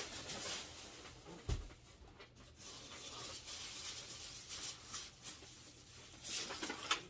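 Styrofoam packing blocks and paper packing being handled with faint rubbing and rustling. A soft thump comes about a second and a half in, and a brief crinkling near the end.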